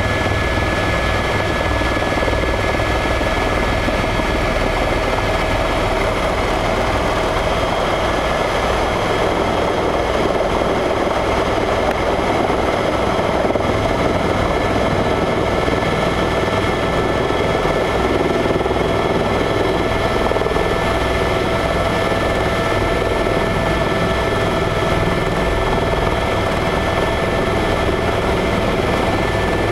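Eurocopter EC130 helicopter heard from inside its cabin as it descends to land: a steady, loud engine whine over the fast low pulsing of the main rotor.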